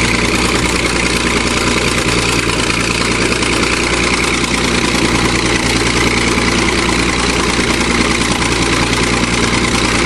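Bulldozer engine running steadily with an even, deep note, holding the same speed throughout.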